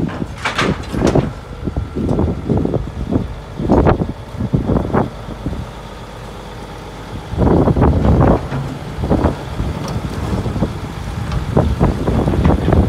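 Diesel engines of Volvo crawler excavators running steadily, with irregular crunches and knocks of broken concrete rubble, a dense run of them about halfway through.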